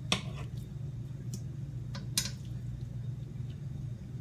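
A few light clicks and knocks of kitchen utensils against a pan as chicken is seared, over a steady low hum.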